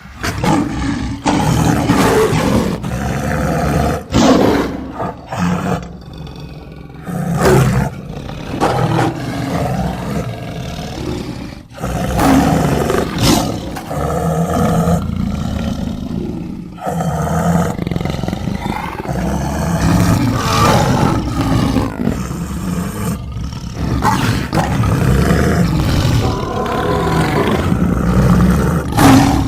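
A run of big-cat roars and snarls, one long roar after another with short breaks between them. They are edited creature roars layered from tiger, leopard, sabre-tooth and monster roar recordings.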